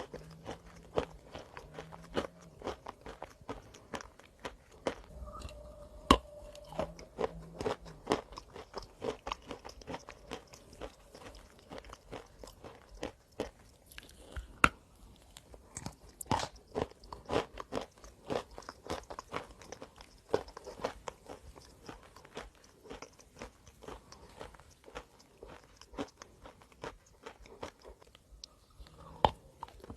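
Close-up crunching as a person bites and chews hard, chalky chunks, eaten as a crunchy snack: many sharp, irregular crunches, a few of them much louder.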